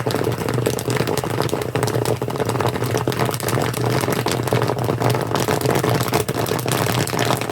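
Popcorn kernels popping in a kettle corn kettle, many quick irregular pops a second over a steady low hum from the cooking setup.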